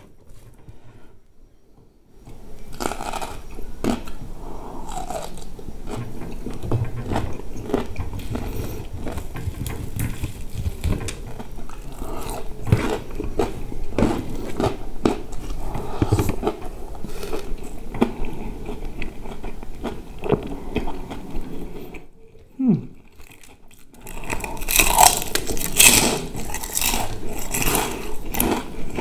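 Close-miked eating sounds: chewing and smacking of rice mixed with sambal, eaten by hand. Near the end come louder, sharper crunches of crispy fried chicken skin being bitten.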